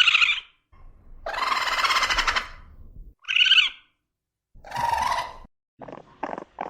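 A series of separate animal calls, some pitched and some harsher, the longest lasting about two seconds.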